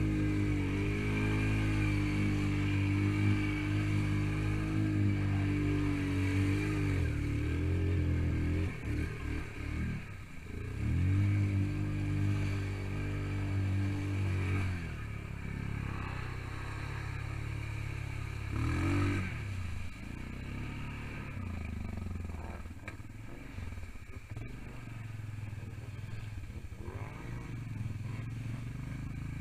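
ATV engine pushing through deep muddy water, holding steady revs, then dipping and picking back up as it labours, with water sloshing and splashing around the machine. The engine note drops about halfway through, revs briefly near the end, and carries on lower.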